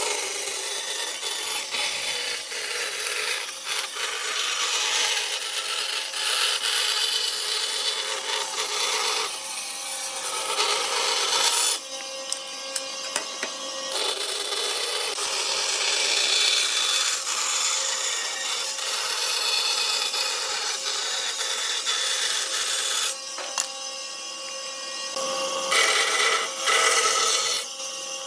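A tool working wood, a steady noise that stops for a couple of seconds about twelve seconds in and again near twenty-three seconds in.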